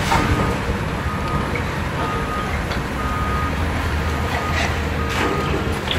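Demolition excavator's diesel engine running with a low drone while a reversing alarm beeps about once a second. Wood and concrete debris crashes and clatters several times, loudest near the end.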